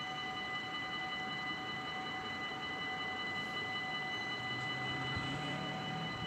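Dutch level crossing's electronic warning bells ringing steadily while the crossing is closed. A faint low hum joins underneath about four seconds in.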